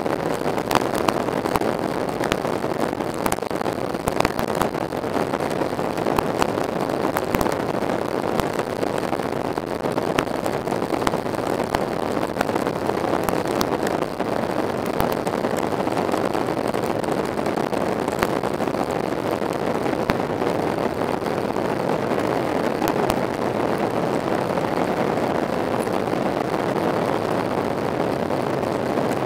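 Steady cabin noise of a Boeing 737-800 in flight: engine and airflow noise heard from inside the passenger cabin, with scattered small clicks.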